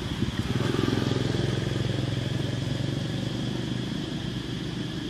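A motor vehicle's engine running close by, strongest about a second in and then slowly fading away, as if the vehicle is passing.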